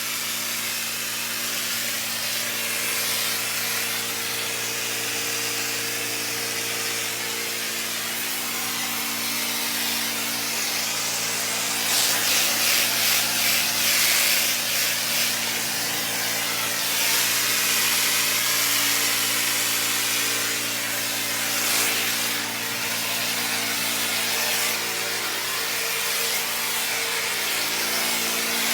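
Pressure washer running: a steady machine hum under the hiss of high-pressure water spray, the spray swelling and pulsing for a few seconds about midway.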